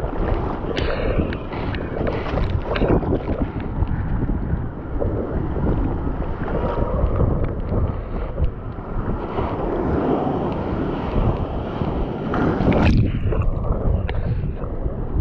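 Sea water sloshing and splashing around an action camera held at the water's surface, with wind buffeting the microphone; a bigger splash comes near the end.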